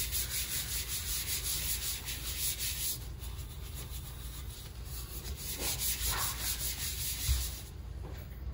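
Rhythmic wet scrubbing of a gloved hand rubbing matte prep paste over a glossy epoxy-coated tumbler, abrading the shiny finish to matte. The strokes come several times a second and turn softer after about three seconds.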